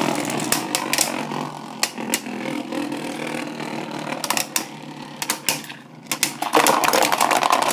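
Two Beyblade spinning tops whirring and rattling across a plastic stadium floor, clacking sharply against each other several times. The rattling grows louder near the end.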